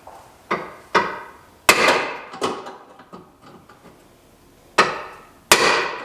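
Hammer blows on a metal car part, about six uneven strikes, each ringing briefly. The hardest strikes come about a second and a half in and near the end.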